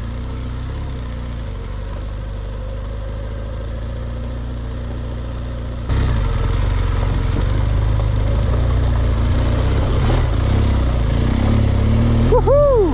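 BMW R 1200 GS boxer-twin motorcycle engine running, a steady low rumble that turns suddenly louder and brighter about halfway through. A brief gliding tone rises and falls near the end.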